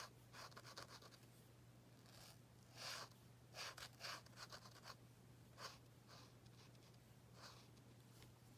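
Faint scratching of a black Posca paint marker's tip drawn across card in a series of short strokes at irregular intervals, over a low steady hum.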